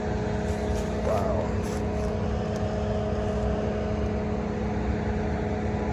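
A steady low mechanical drone with a constant hum and rumble underneath, unchanging throughout.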